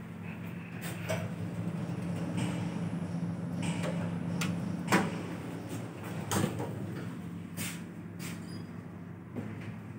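Steady low hum inside a Hyundai traction elevator car, with a series of sharp clicks and knocks as the floor buttons on the car's operating panel are pressed, the loudest about five seconds in.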